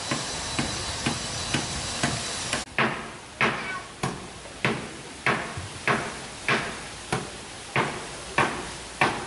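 Hammer driving nails into wooden planking on a boat's cabin side, a steady run of strikes about every half second. The blows are light at first and become heavier from about three seconds in.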